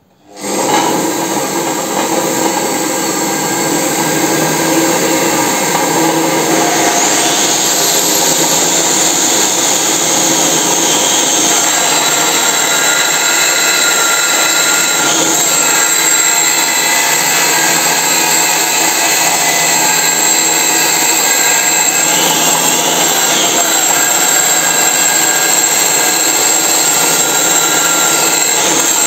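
A homemade lathe's belt-driven electric motor starts and runs steadily. About seven seconds in, an angle grinder spins up with a rising whine and grinds against the spinning shock-absorber tube, stripping its paint.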